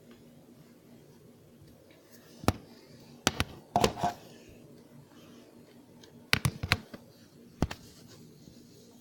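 A handful of sharp clicks and knocks. There is one at about two and a half seconds, a quick run of them between three and four seconds, another quick run around six and a half seconds, and a last one near eight seconds.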